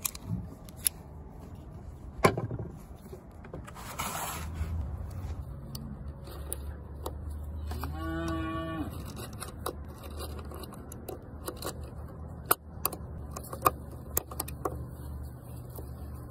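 Sharp metallic clicks of a small Browning pocket pistol being handled and cartridges being pressed into its magazine: one loud click about two seconds in and a run of clicks near the end. A cow moos once about halfway through, over a steady low hum.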